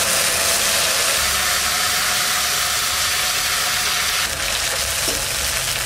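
Ground spice paste of chilli, cumin, coriander and ginger sizzling in hot mustard oil in a wok: a loud, steady frying hiss that eases a little about four seconds in.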